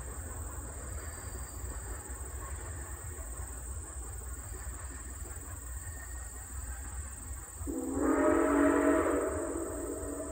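Nickel Plate 765, a 2-8-4 Berkshire steam locomotive, as a low, steady rumble, then its steam whistle blows one long blast about eight seconds in: several tones sounding together as a chord, the loudest sound, tailing off near the end.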